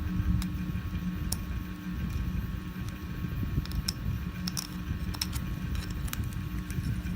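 A steady low electric hum, like a fan or motor, runs throughout, with scattered small clicks and ticks of hand tools working at the plastic supports of a 3D print.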